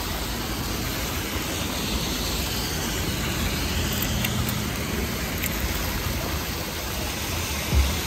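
Rain runoff rushing steadily through a street storm drain grate as debris is scraped off it with a boot. A single dull thump near the end.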